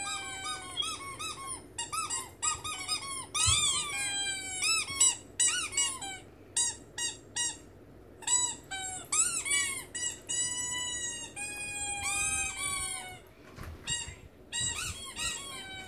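Small rubber squeaky ball squeezed over and over by hand: a run of short, high squeaks that bend up and down, broken by a few longer drawn-out squeals.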